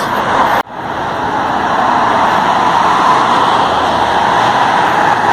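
Steady road traffic noise, an even rushing sound, which starts after an abrupt cut about half a second in.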